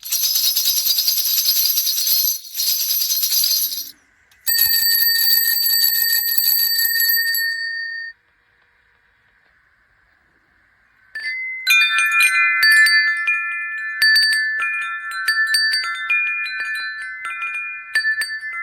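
Small noise-making toys sounding one after another. First comes a buzzing, rattling sound lasting about four seconds, then a steady buzzing tone for about three and a half seconds. After a pause of about three seconds, a tinkling, chime-like tune of overlapping notes plays for the last seven seconds.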